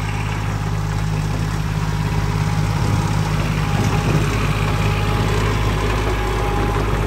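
Komatsu PC05-6 mini excavator's diesel engine running steadily, getting a little louder about three seconds in.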